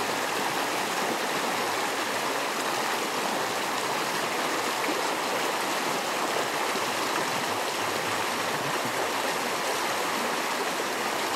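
Steady rushing of a flowing creek, even and unbroken.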